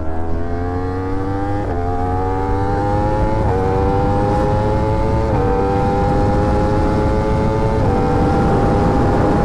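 Sport motorcycle engine pulling through the gears. Its pitch climbs steadily in each gear and drops four times at upshifts about two seconds apart, the last gear held longer, over a steady low rumble.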